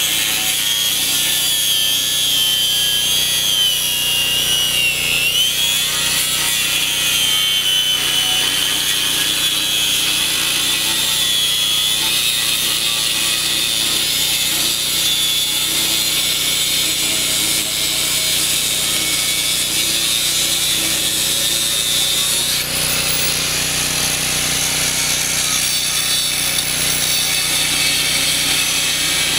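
DeWalt 4.5-inch, 7-amp angle grinder with a new cut-off blade cutting through the roughly eighth-inch steel shell of a sealed air-conditioner compressor: a continuous high whine over grinding noise. The pitch sags as the blade is pressed into the cut and jumps up sharply about three-quarters of the way through.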